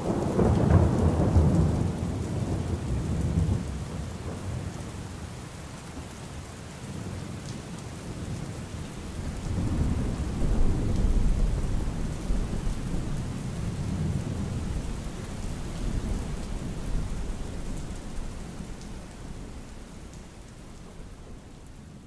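Rain falling with low rolling thunder, rumbling at the start and again about ten seconds in, then fading out.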